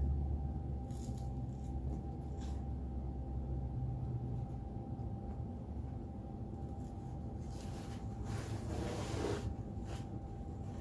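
A person chewing a bacon and egg sandwich on toast, with scattered soft crunching and mouth noises over a steady low hum. A longer, louder crackly noise comes about eight seconds in.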